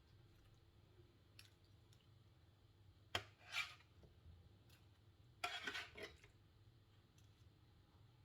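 Mostly quiet, with a sharp click about three seconds in, a short scrape just after, and a longer clatter-and-scrape a couple of seconds later: kitchen utensils handling food against a serving dish.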